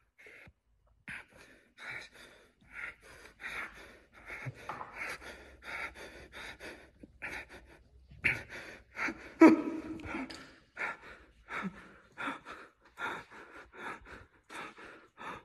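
A man breathing hard and fast in short gasps, about two breaths a second, with a louder sound about nine and a half seconds in.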